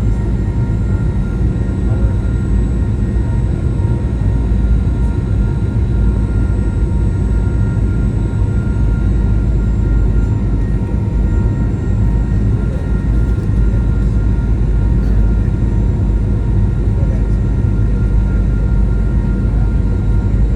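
Steady cabin noise inside a Boeing 737-900 in flight: the continuous rush of air and drone of its CFM56 jet engines, with a few faint steady tones above it.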